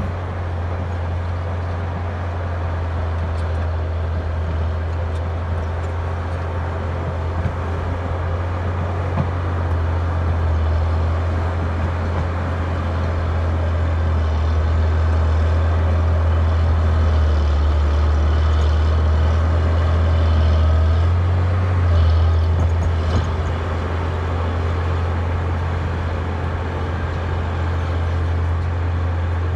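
Caterpillar D6D crawler dozer's diesel engine working hard under load as it breaks out shale and clay, a steady low drone that swells through the middle. A few light knocks sound about two-thirds of the way through.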